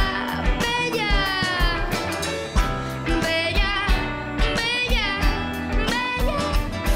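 Live band with a woman singing: electric guitar, acoustic guitar, electric bass and a drum kit behind her voice, with a steady kick-drum beat about twice a second.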